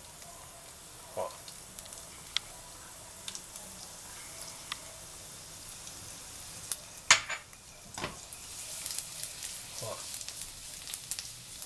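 Minced garlic frying in melted lard in a hot frying pan: a steady sizzle with scattered crackles that get busier toward the end. A few sharp clicks stand out, the loudest a little past the middle.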